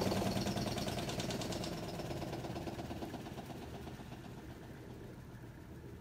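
Panda PAN56MGW2 portable washing machine spinning its tub to drain water during the rinse stage, the motor and drum noise fading steadily as the spin winds down.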